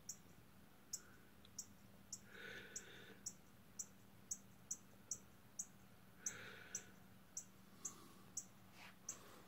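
Northern cardinal giving a steady run of sharp, high chip calls, faint and about two a second.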